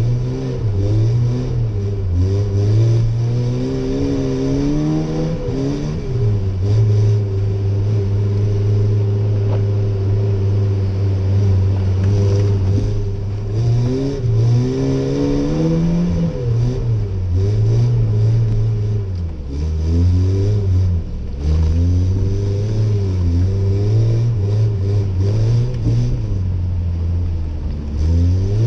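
Chevy S10 pickup's engine heard from inside the cab, revving up and down over and over as the truck is slid around on snow, with the revs held steady for about six seconds near the middle.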